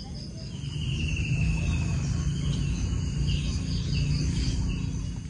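Insects, crickets or cicadas, chirping steadily: a high, even buzz with a rapid, evenly pulsed chirp over it. A thin high call falls slowly in pitch about a second in. A low rumble swells at about the same time and is the loudest part of the sound.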